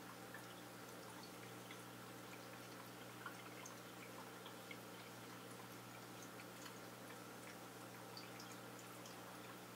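Faint aquarium background: a steady low hum with small scattered ticks and drips of water throughout.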